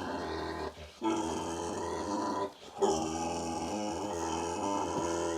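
A large pig grunting in three long, low, drawn-out strings with short breaks between. It is a sign of discomfort as a tender spot along its spine at the thoracolumbar junction is pressed.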